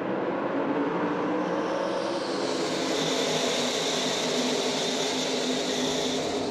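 A full field of NASCAR Craftsman Truck Series trucks running in a tight pack on a restart, their V8 engines blending into one dense, steady drone that grows brighter about two seconds in.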